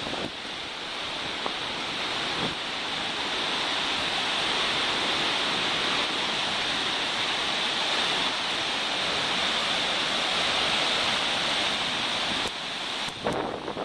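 Karakaya-Su waterfall's falling water: a steady, dense rush that builds slightly over the first few seconds and then holds. A few sharp clicks near the end.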